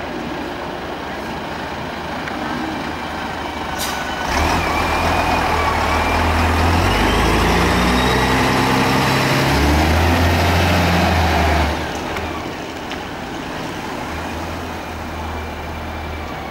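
Fire service aerial platform truck (Bronto Skylift) driving slowly past close by, its diesel engine running loudly. The sound is loudest through the middle, with a short sharp burst just before it and a sudden drop back to the quieter background about twelve seconds in.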